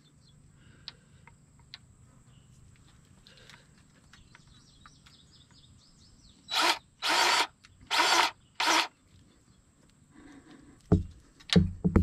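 Electric grease gun running in four short bursts, pumping grease through the grease fitting into a bulldozer's track adjuster so the piston pushes out and tightens the track. A few heavy knocks near the end.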